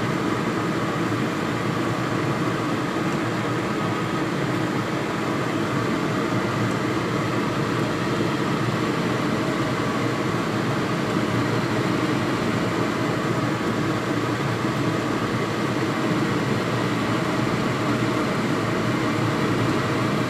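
Steady kitchen noise: a constant, even rushing hiss that holds unchanged throughout.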